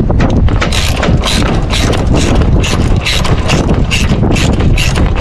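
Ratchet wrench clicking in quick, even strokes, about three a second, as it spins a nut down onto the boom's gooseneck bolt.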